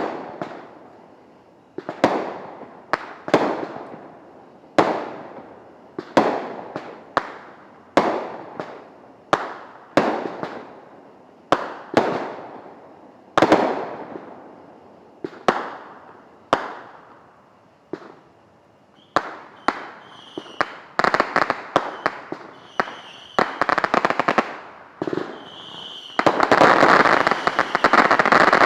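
Liberty Bell brand consumer fireworks going off: a string of sharp bangs, roughly one a second, each trailing off in an echo. Past the middle they come faster and crackle, with brief whistles, and they end in a dense, continuous crackling barrage for the last few seconds.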